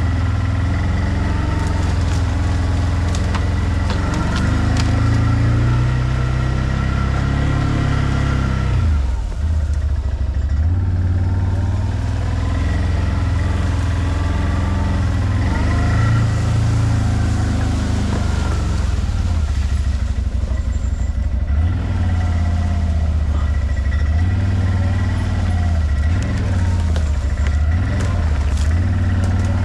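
ODES 650 ATV engine running at low speed under load, the throttle eased off and opened again several times, about nine seconds in, around twenty seconds in, and in quick succession near the end.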